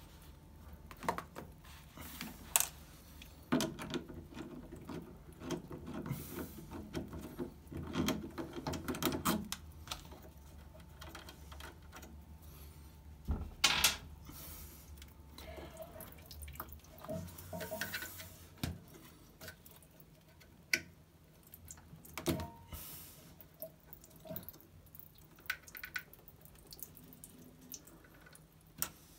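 Water trickling and dripping from a washing machine's tub into a container, with scattered clicks and knocks throughout.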